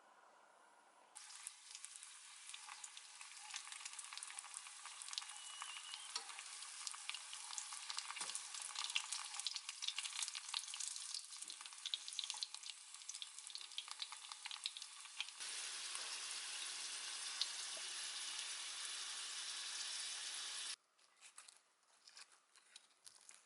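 Food frying in oil in a pan: a dense sizzle full of crackles and pops, starting abruptly about a second in. Partway through it turns into a steadier hiss, then cuts off suddenly a couple of seconds before the end.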